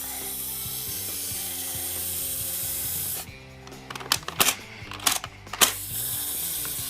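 Background music with a steady hiss; from about three seconds in, a run of sharp clicks and snaps from the pieces of a Tomica plastic toy garage set being fitted together, the loudest two near the end of the run, before the music comes back.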